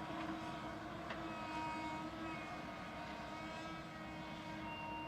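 Komatsu PC220 hydraulic excavator's diesel engine running under work: a steady drone with a few high, steady tones over it.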